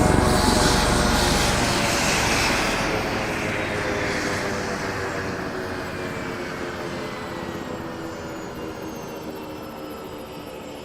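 Helicopter flying away, its engine and rotor noise fading steadily as it recedes, with the pitch sliding slowly downward.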